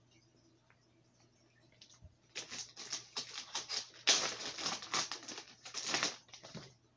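Stiff plastic bait packaging crinkling and crackling as it is handled and opened, in a run of rustling bursts that starts about two seconds in and is loudest around the middle.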